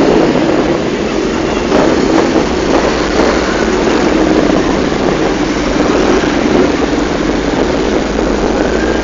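A column of motorcycles, sport bikes, tourers and a sidecar outfit among them, rolling past at low speed, their engines blending into one steady, continuous drone.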